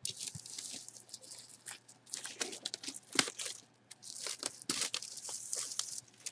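Packaging of a mystery jersey box being handled and torn open: irregular crinkling and tearing with scattered sharp clicks and snaps.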